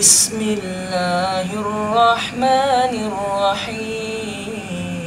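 A man's voice chanting Quran recitation in a melodic, drawn-out style, with long, wavering held notes. A short sharp noise comes at the very start.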